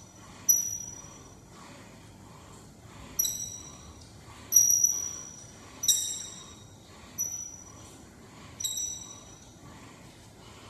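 Cable crossover machine clinking with each rep, a sharp metal clink with a short bright ring about six times, roughly every one and a half seconds, as the weight-stack plates settle and the cable hardware knocks.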